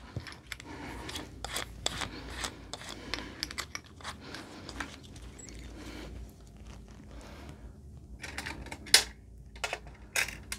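Small metal clicks and rattles of a drill bit being changed in a cordless drill's keyless chuck, the chuck being turned by hand and the loose bits clinking. The clicks come irregularly, with one louder click near the end.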